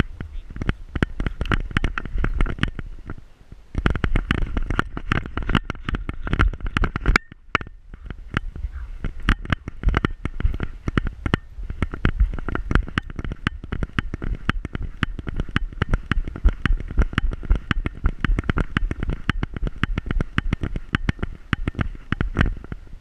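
Dog-mounted camera knocking and rubbing in its harness as the Pointer moves, a fast run of knocks over a low rumble. It eases off briefly twice, when the dog goes still.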